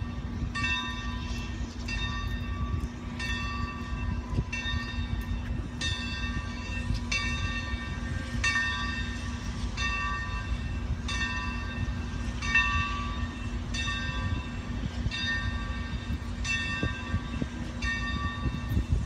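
Steam locomotive bell of Santa Fe 4-8-4 No. 3751 ringing steadily on its approach, about one stroke every 1.3 seconds, over a low steady rumble.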